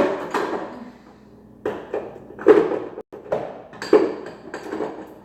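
A cooking utensil knocking and scraping against a pot as a sauce is stirred: a run of sharp knocks, some with a short metallic ring.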